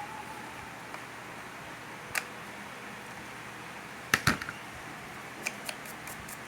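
A few light clicks and one louder double knock about four seconds in, from small hard parts of a hair clipper being handled as it is put back together.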